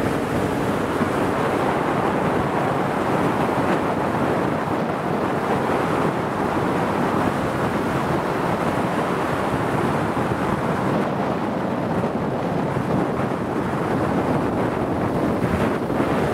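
Steady rush of wind and water from a boat under way at speed, with wind buffeting the microphone.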